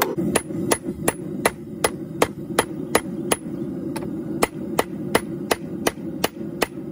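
Hand hammer striking red-hot Damascus steel on an anvil in a steady rhythm, a little under three blows a second, each with a bright metallic ring. A steady low rush of a propane forge burner runs underneath.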